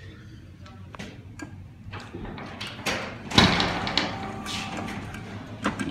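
Clicks and knocks from a plush-toy claw machine being played, over steady arcade background noise, with the loudest knock about three and a half seconds in.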